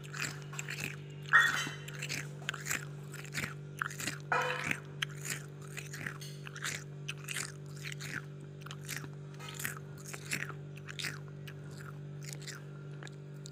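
Freezer frost crunching in quick, irregular crackles, a few a second, over a steady low hum.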